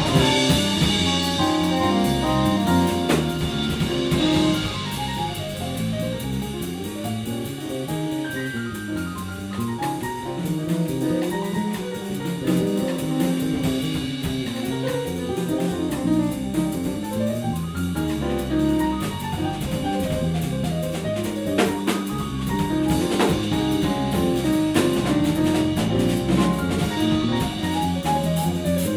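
Jazz played by a band, with a drum kit and cymbals throughout over a low line of notes that steps up and down.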